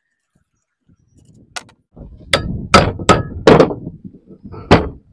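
Hammer blows on an old electric water pump as it is knocked apart to get at the impeller: about seven sharp strikes in an uneven run starting about a second and a half in, the last one a second after the rest.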